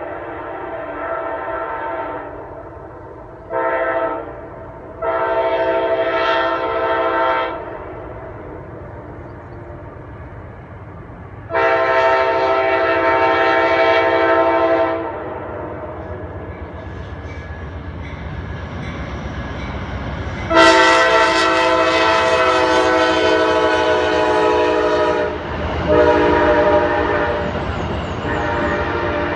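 Amtrak locomotive air horn blowing a series of long and short blasts, a grade-crossing signal pattern, over the low rumble of the passing train.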